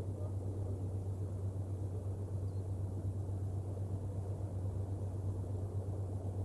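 Steady low hum over a soft, even rumbling background noise that does not change.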